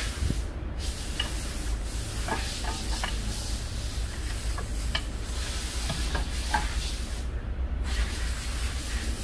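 Steady low hum and hiss with scattered light clicks and taps of metal brake parts being handled and fitted back on a car's rear brake assembly.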